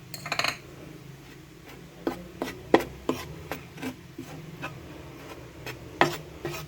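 Spoon stirring a dry coating mix of flour, black pepper and salt in a bowl: a brief scrape, then irregular light taps and scrapes against the bowl, a couple a second.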